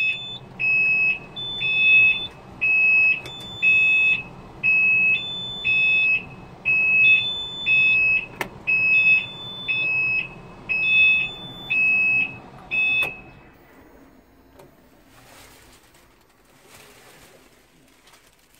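Tractor dashboard warning buzzer beeping over and over with the key switched on and the engine not running, a high electronic beep about once or twice a second over a low hum. Both stop about 13 seconds in.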